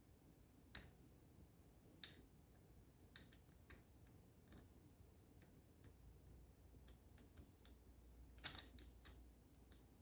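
Faint, irregular small clicks and taps of metal lock parts and tools being handled while the pins are taken out of a dimple lock; the loudest is a short cluster of clicks near the end.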